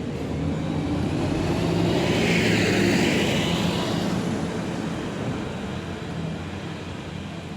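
A vehicle passing by: a rushing noise that swells to a peak about three seconds in and then fades away over a steady low rumble.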